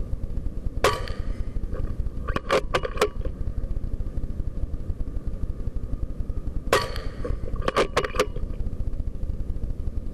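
Two air-rifle shots, about six seconds apart, each a sharp crack followed a second or so later by a quick run of clicks as the rifle is cycled for the next pellet. A steady low rumble runs underneath.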